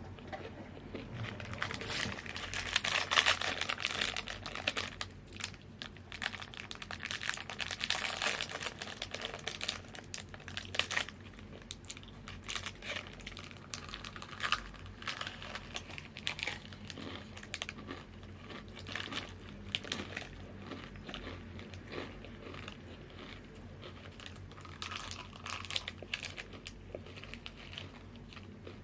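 Crinkling of a plastic chip bag being handled, with many small crackles: dense over the first several seconds, then sparser and intermittent.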